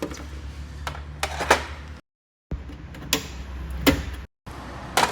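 Scattered sharp clicks and knocks of plastic and metal as a Ford Fusion's window regulator is unclipped and worked loose inside the bare door, over a low steady hum. The sound cuts out completely twice for a moment.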